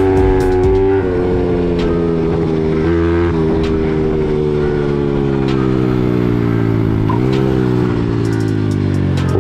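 Built Honda CRF50 mini bike's single-cylinder engine under way. It revs up in the first second, then its pitch sinks slowly over several seconds, picks up again about seven seconds in, and falls off toward the end.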